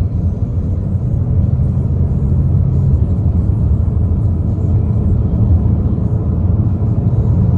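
Steady low rumble of a 2015 Chevy Cruze driving along, engine and road noise heard from inside the cabin.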